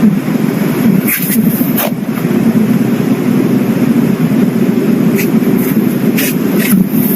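Slime being squished and kneaded: a steady low squishing with a few short crackling pops scattered through it.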